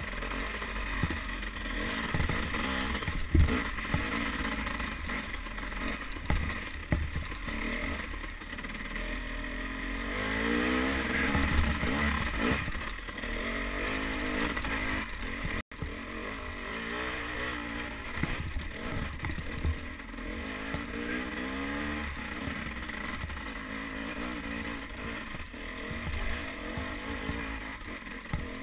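Dirt bike engine running while riding, its pitch rising and falling as the throttle is opened and closed, over a low rumble, with occasional sharp knocks. The sound cuts out for an instant about halfway through.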